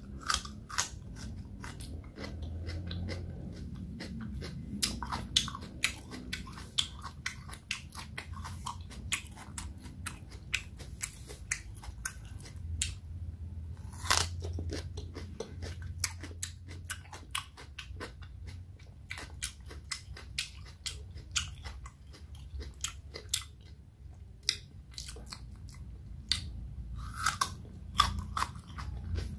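Raw cucumber being bitten and chewed: crisp crunching bites and many quick wet mouth clicks, with the sharpest bite about halfway through.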